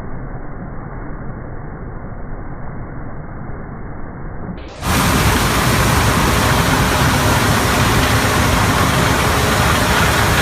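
Corn-harvest machinery running with a steady noise. It is muffled at first, then turns abruptly louder and fuller about five seconds in.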